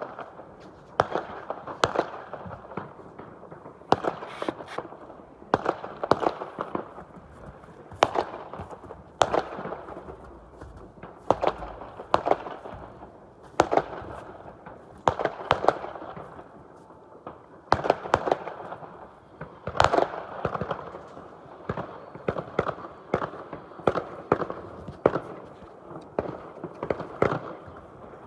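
Fireworks going off: a long run of sharp bangs, one every second or two, sometimes two or three close together, each followed by a short echoing rumble.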